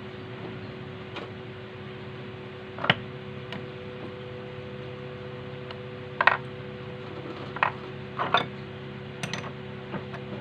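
Small metal parts and hand tools clinking and tapping now and then during repair work on a sewing machine, over a steady hum.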